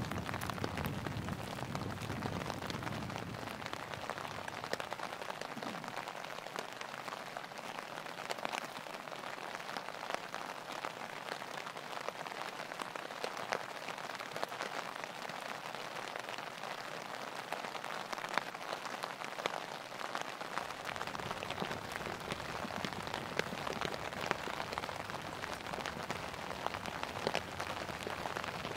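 Steady rain falling, with many separate drops tapping on a nylon tarp.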